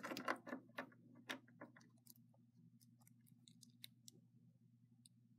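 Faint clicks and taps of plastic Littlest Pet Shop figurines being handled and set down, several close together in the first second and a half, then only sparse faint ticks over a low steady hum.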